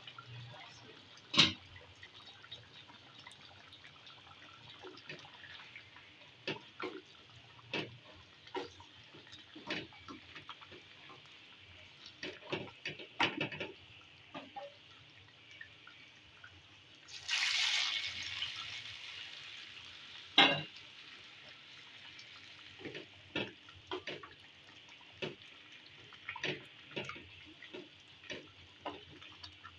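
A wooden spatula stirring a simmering pot of beef and chana dal stew, with irregular knocks and scrapes against the pot over a faint steady bubbling hiss. A little past halfway, a loud sizzling hiss lasts about a second, as hot fried onions and dried red chillies in oil are poured into the stew.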